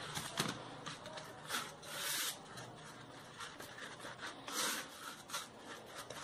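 Faint, intermittent brushing and scraping as a flat brush spreads white glue over a cake dummy turned in the hands, with a few soft handling knocks.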